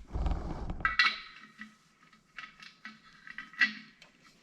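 Small metal pipe fittings clinking and tapping together as they are handled, with a sharp ringing clink about a second in and a string of lighter clicks after it, one louder near the end. A low handling rumble comes before the first clink.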